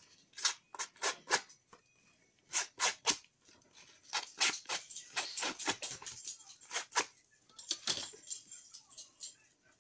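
Paper and card being handled on a cutting mat: a run of short, crisp rustles and taps, busiest in the middle stretch.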